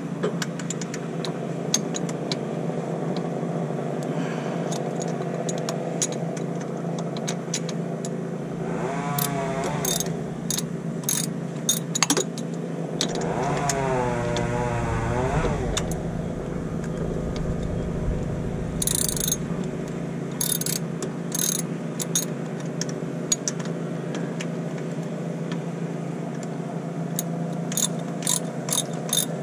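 Hand socket ratchet clicking in short runs as bolts on the AC compressor are worked, over a steady low machine hum. Twice a pitched motor-like sound swells and bends in pitch.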